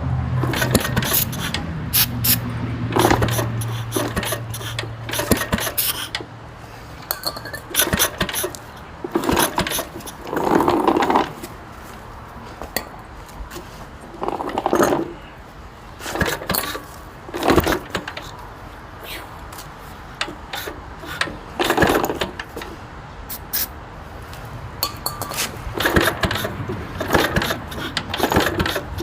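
A low steady hum that stops about six seconds in, then irregular metal clinks, scrapes and knocks of hand tools and parts on a small engine, with several louder bursts of about a second each.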